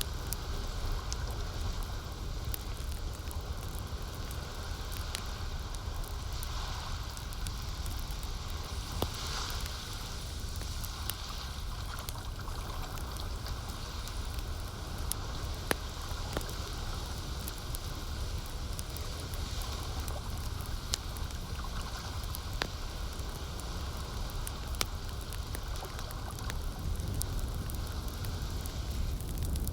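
Campfire crackling, with sharp pops scattered over a steady low rumble, mixed with the gurgle of lake water lapping.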